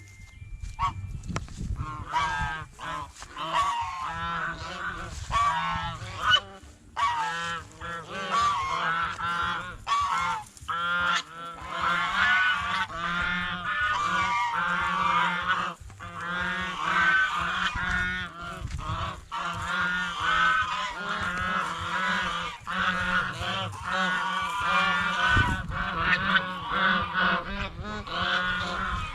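Several white domestic geese honking almost continuously, their calls overlapping one another, with a steady low hum underneath.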